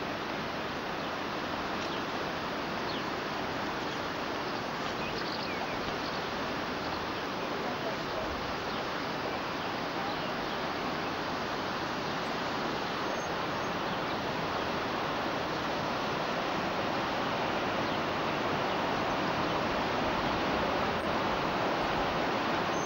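Rushing river water, the Gave de Pau flowing fast below a bridge, as one steady noise that grows a little louder near the end.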